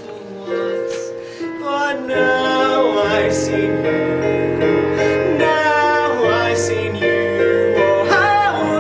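Musical theatre song performed live: voices holding long, wavering notes over sustained instrumental accompaniment, with a deeper bass coming in about two seconds in.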